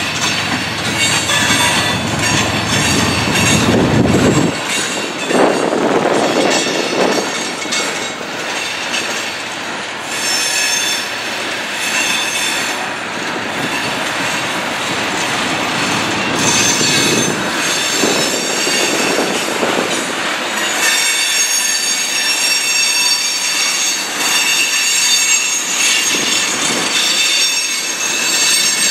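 Freight train of boxcars and tank cars rolling past close by, its wheels squealing in several steady high tones over the rumble and clatter of the cars.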